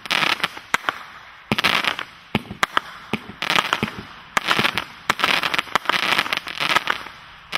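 A Jack Frost 36-shot consumer fireworks cake firing in quick succession, roughly a shot a second. Each sharp bang is followed by the dense crackle of a Crackling Rain burst.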